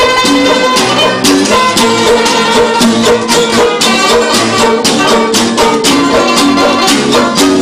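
A rondalla string ensemble of acoustic guitar, banjo and mandolin-type lutes strumming and plucking a lively tune together, with a quick, even strummed beat.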